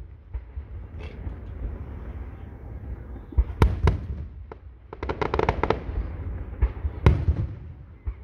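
Aerial fireworks shells bursting overhead: two sharp bangs a few seconds in, then a rapid run of crackles, then another loud bang near the end.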